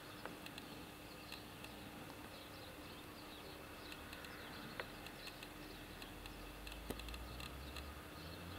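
Faint outdoor field ambience of many small, quick high chirps, over a steady low hum. A few sharp clicks come about a quarter second in, near the middle and about two-thirds through.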